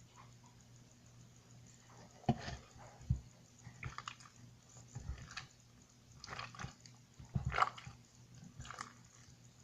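Sticky homemade slime squelching and clicking as it is kneaded and pulled by hand, in irregular wet smacks starting about two seconds in.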